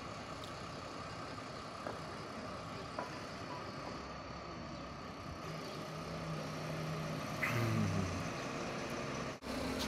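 Truck engine running steadily while its mounted crane unloads, with a faint steady whine above the engine hum. It gets a little louder in the second half, with a brief rise and fall in pitch near the end.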